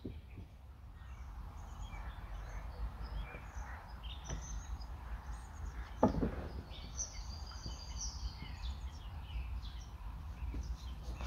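Small birds chirping now and then over a steady low rumble, with one heavy thud about six seconds in as a hiker drops down off a fallen log onto the ground.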